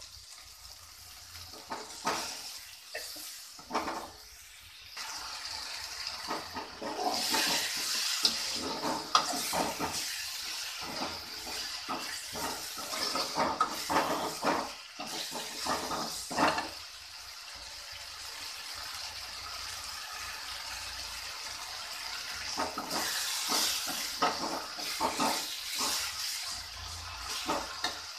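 Masala sizzling in hot oil in a steel kadai just after curd is added, with a steady hiss, while a perforated steel skimmer ladle stirs and scrapes against the pan in short strokes.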